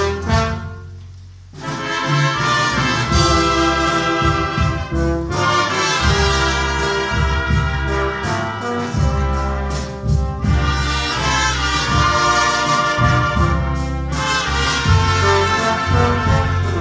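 A brass band playing together, trumpets and baritone horns over strong low bass notes. The music drops away briefly about a second in, then the full band comes back in and plays on.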